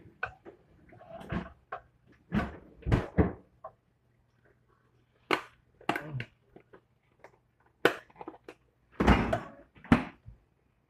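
Knocks and clatter of containers being shifted about on the shelves of an open refrigerator, then the fridge door being swung shut with a thud near the end.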